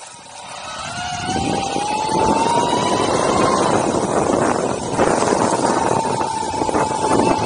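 Ecomobl ET electric skateboard's drive motors whining, the pitch climbing as the board speeds up over the first few seconds and then holding steady. Under it is a loud, steady rushing of wheels and wind on a wet road.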